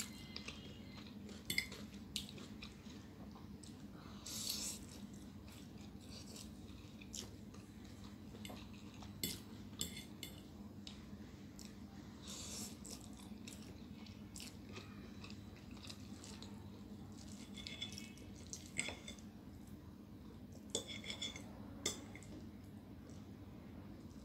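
Close-up mouth sounds of eating chow mein noodles: wet chewing and slurping of noodle strands. Now and then a metal fork clicks and clinks against a ceramic plate, a few times with a short ring. A low steady hum runs underneath.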